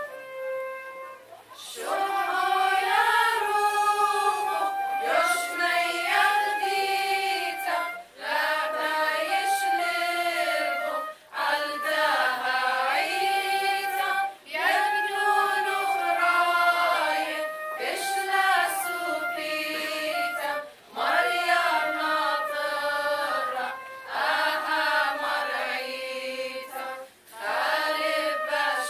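Women's choir singing with flute accompaniment: a flute line holds a note at the start, then the choir comes in about two seconds in, singing in phrases of a few seconds with brief breaths between, the flutes playing along.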